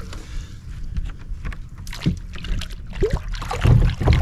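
Handling noise: scattered knocks and a few heavy low thumps, the loudest about three and a half seconds in, over a steady low rumble of wind or handling on the microphone.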